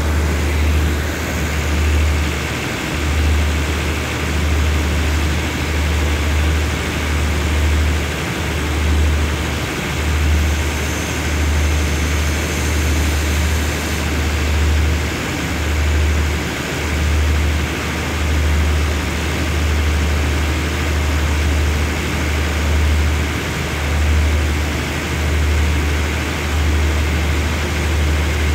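Diesel-hauled passenger train standing at the platform with its engines running: a steady drone over a loud low rumble that comes and goes.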